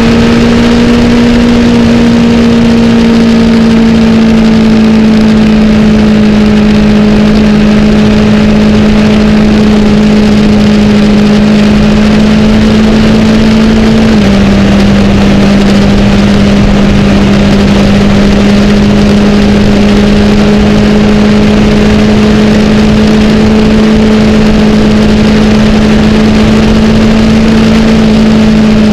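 Wind rushing over a motorcycle-mounted camera at highway speed, with the steady hum of a 2008 Honda CBR1000RR's inline-four engine under it. The engine note drops a step about halfway through, then climbs slowly as the bike speeds up.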